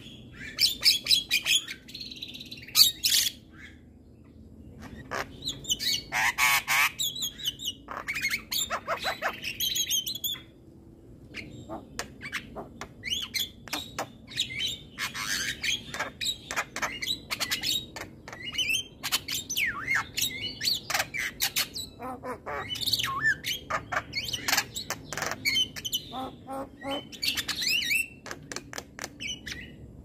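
Javan myna singing: a fast, chattering run of clicks, chirps and harsh squawks that pauses briefly twice.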